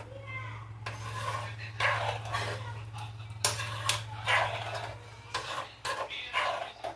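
Spoon stirring and scraping apple halwa with milk in a cooking pan, in irregular strokes about once a second, over a steady low hum.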